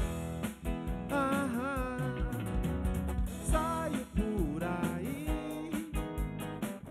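Live band playing: drum kit, electric bass and electric guitars, with a man singing the melody over them.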